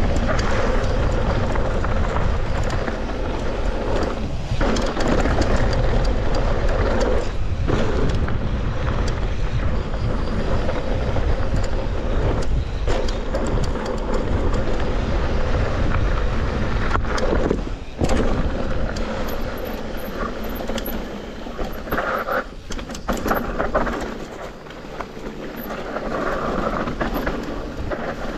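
Mountain bike ridden fast down dry dirt singletrack: tyres rolling and crunching on dirt, the bike rattling over bumps, with heavy wind buffeting the handlebar camera's microphone. It eases off for a few seconds near the end.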